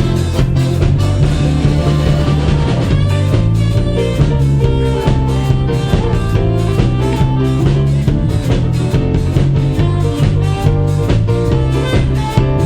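Live band music, instrumental: drum kit keeping a steady beat under bass and electric guitar.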